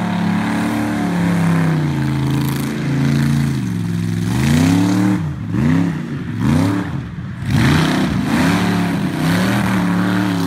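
Engine of a vehicle doing a tyre-smoking burnout, held at steady high revs, then from about four seconds in revved up and down in quick repeated swells, with the hiss of spinning tyres underneath.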